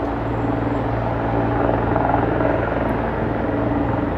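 Bell 412EP helicopter lifting off into a low hover: the steady beat of its four-blade main rotor over the hum of its twin turboshaft engines at take-off power, growing slightly louder toward the end.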